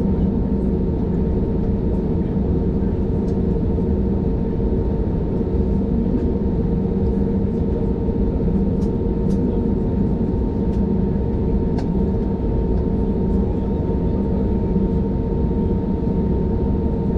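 Steady drone inside an airliner's cabin while the plane stands parked at the gate, with a constant hum at a few fixed pitches and a few faint clicks.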